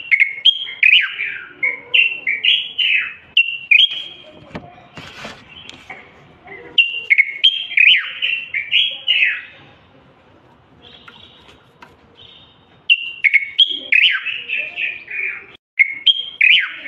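Moroccan bulbul (common bulbul) singing: quick runs of loud, fluty warbling notes in three bouts, with pauses of a few seconds between them.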